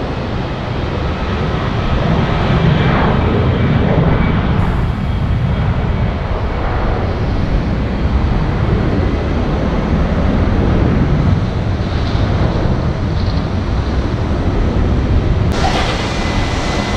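Twin-engine jet airliner at takeoff power, a steady jet roar as it rolls down the runway and climbs out. Near the end the sound switches abruptly to a steady airport-ramp hiss with a faint high whine.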